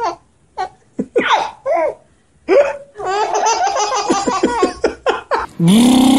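Baby laughing in a run of short, breathy bursts of belly laughter. Near the end a loud, long held vocal tone begins.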